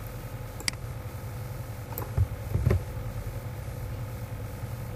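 A few scattered clicks from computer keyboard and mouse use over a steady low hum.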